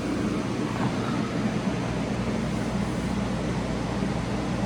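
Harbor Breeze ceiling fan running on high: a steady whoosh of moving air with a low motor hum, blended with other ceiling fans running in the same room.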